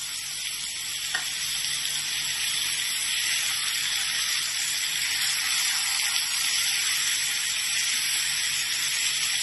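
Shredded vegetables sizzling in a hot wok just after vinegar is splashed in, with a spatula stirring them. A steady hiss grows a little louder over the first few seconds.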